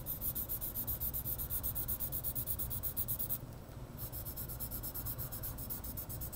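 Sharpie marker scribbling on paper, quick back-and-forth strokes about six a second while filling in a thick black line. The strokes break off for about half a second just past the middle, then resume.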